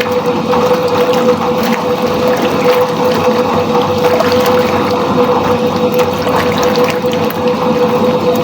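Soviet washing machine running a wash: a steady motor hum over water churning and sloshing in the tub.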